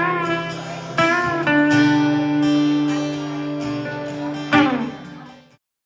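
Guitar playing an instrumental passage over a held low note, with bent notes and a quick downward slide near the end; the sound then cuts off abruptly.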